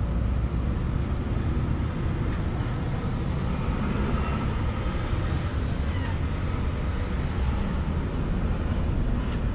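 Steady rumble of freeway traffic passing, mixed with low wind rumble on the microphone.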